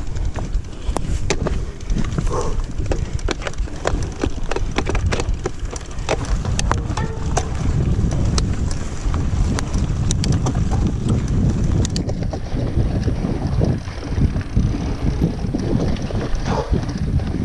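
Mountain bike on a sandy forest trail: wind rumbling on the microphone, with many sharp clicks and rattles from the bike, thickest in the first six seconds.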